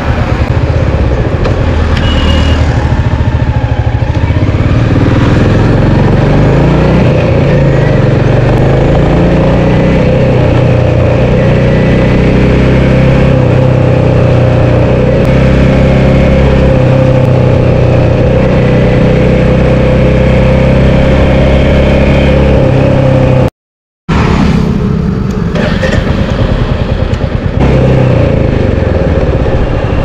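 Royal Enfield Meteor 350's single-cylinder engine running on the move, its pitch rising and falling with the throttle and gear changes. The sound drops out briefly about three quarters of the way through.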